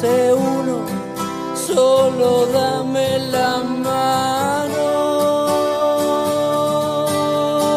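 Music: acoustic guitar with a singing voice, settling into long held notes in the second half.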